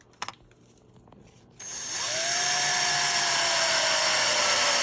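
Power drill/driver motor running under load while driving a screw, starting about a second and a half in, with a steady whine that slowly falls in pitch. A short click comes just before it.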